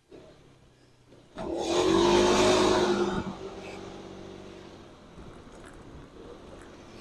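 A motor vehicle's engine and road noise surge suddenly and loudly about a second in, with a steady engine note, then fade away slowly.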